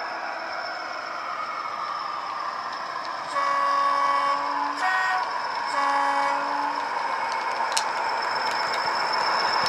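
A model Class 40 locomotive's sound decoder plays a recorded English Electric diesel engine running, through the model's small speakers. A little over three seconds in, the two-tone horn sounds three times: a long low note, a short higher note, then another long low note. A single sharp click follows near the end.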